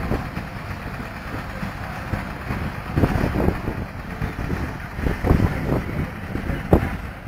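Garvie threshing machine running on belt drive as sheaves are fed into it, a dense uneven rumble, with wind buffeting the microphone.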